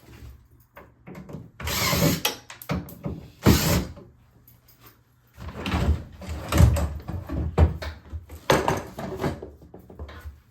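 Old wooden bathroom vanity cabinet being handled as its removal begins: doors and drawers knocking and scraping, with objects clattering, in several loud bouts.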